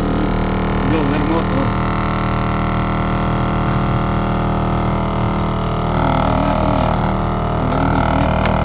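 A/C blower motor of a Mitsubishi Fuso Fighter truck running with a loud, steady drone, cutting off suddenly at the very end. This is the noise and vibration the blower motor is giving off; the mechanic suspects a bearing, or something that has got inside or broken in the fan.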